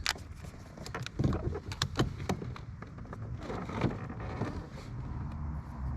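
Small electric motor, likely the boat's trolling motor, humming low and steadily. Over it come a series of sharp knocks and clicks in the first half.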